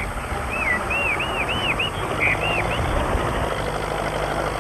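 Tractor engine running steadily while ploughing a dry field. Over it, in the first half, a bird chirps a quick run of short rising-and-falling notes.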